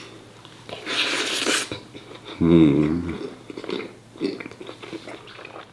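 Mouth sounds of a person eating: a breathy slurp or hiss about a second in, then a short hummed vocal sound, with light chewing clicks throughout.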